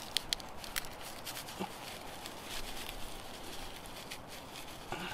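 Dry birch bark strips crackling as they are handled and pressed into a tinder bundle: a few sharp crackles, several early on and one around four seconds in, over a steady background hiss.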